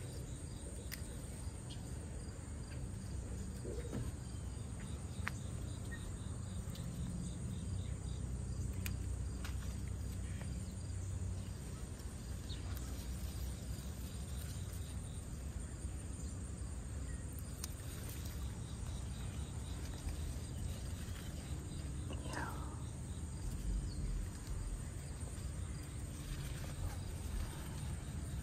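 Outdoor ambience of insects chirring steadily over a low rumble, with a few faint ticks.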